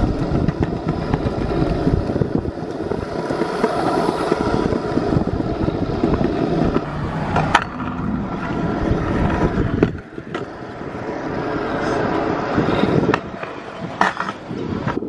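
Stunt scooter wheels rolling fast over concrete footpath and asphalt, a steady gritty rumble. A few sharp clicks come through, about two-thirds of the way in and again near the end.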